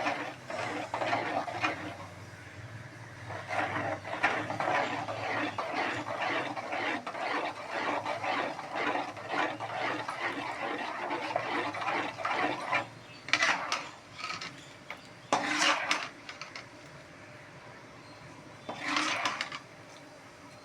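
A utensil stirring and scraping in a kadai as a tomato masala is sautéed with salt until its raw smell cooks off. Rapid scraping runs for most of the first twelve seconds, then comes in three short bursts near the end.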